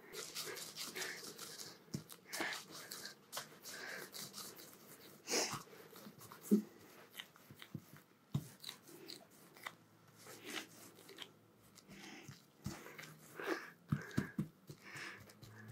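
Gloved hands rolling a sticky ground date-and-peanut mixture into logs on a silicone baking mat: irregular soft rustles, squishes and light taps of plastic gloves and dough.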